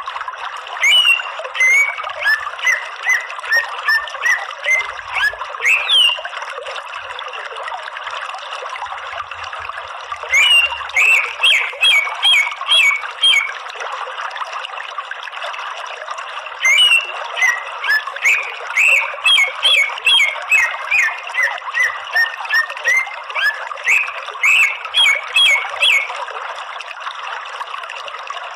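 Cucak ijo (green leafbird) song: three bursts of rapid, sharp, chattering notes with pauses between them, over a steady rushing background noise.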